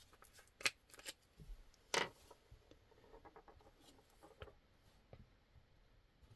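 Faint light clicks and taps of a folding knife's small parts being handled during reassembly, as a pivot bearing is picked up and set in place. The sharpest click comes about two seconds in, with smaller ticks after.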